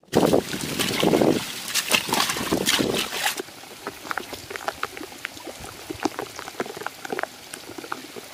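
Water splashing and sloshing as people wade through a shallow muddy fishpond, loudest for the first three seconds or so. Then lighter, scattered drips and small splashes as hands work mud under the water.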